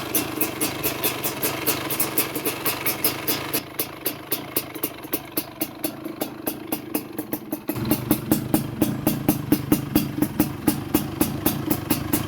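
Yamaha DT175 two-stroke single-cylinder engine, ported and fitted with a Vforce 3 reed valve, idling with a regular uneven beat of about four to five pulses a second. The sound drops back for a few seconds in the middle, then comes back louder and fuller about eight seconds in.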